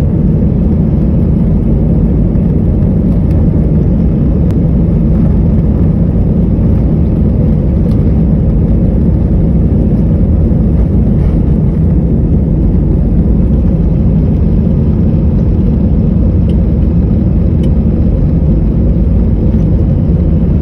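Jet airliner's engines and airframe heard from inside the cabin: a loud, steady low rumble with no change in pitch, the aircraft rolling slowly on the ground before take-off.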